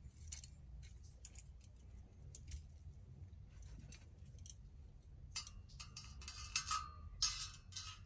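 Metal parts of a ceiling-fan light kit clinking and rattling as they are handled. A few faint clicks come first, then a denser run of jangling clinks over the last few seconds.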